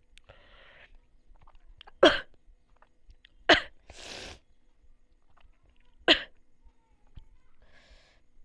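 A person coughing: three short, sharp coughs about two, three and a half and six seconds in, with audible breaths between them.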